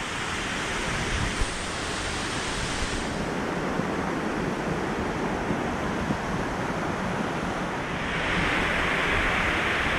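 Steady rush of falling water from a small waterfall, growing a little louder and brighter about eight seconds in.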